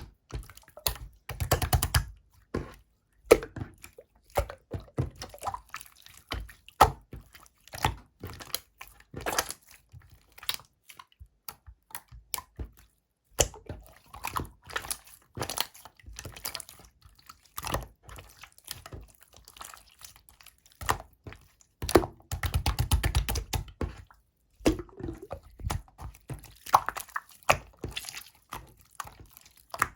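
Clear slime being pressed and stretched by hand, giving irregular wet clicks and pops, with two stretches of rapid crackling clicks, one near the start and one about three-quarters of the way through.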